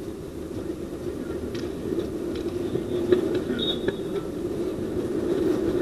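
Steady low rumble of outdoor background noise, with a few faint knocks and a brief high tone about three and a half seconds in.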